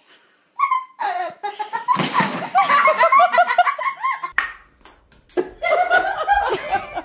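A person laughing hard in rapid repeated bursts. There is a short pause about four seconds in, then more laughter.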